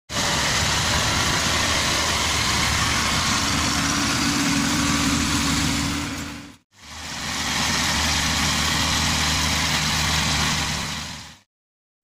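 Inari rice combine harvester running steadily, its engine and machinery working. The sound fades out about six and a half seconds in, comes straight back, and fades out again near the end.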